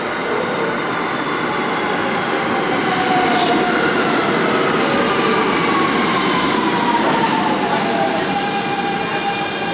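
R160 subway train standing at the platform, its equipment giving a steady hum with whining tones, one of which slides down in pitch in the middle.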